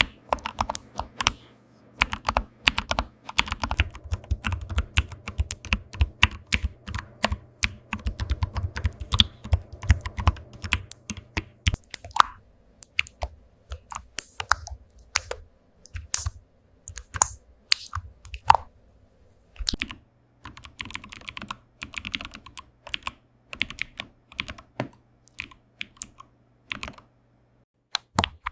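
Computer keyboard typing: quick, irregular keystroke clicks, dense and louder for the first dozen seconds, then sparser and lighter. A low steady hum sits under the typing for much of it.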